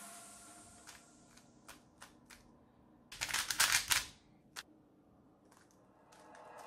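Stickerless 3x3 speedcube being turned by hand: a few separate plastic clicks of the layers, then a fast run of clacking turns about three seconds in as an OLL algorithm is executed, and a few light clicks after. Background music fades out at the start.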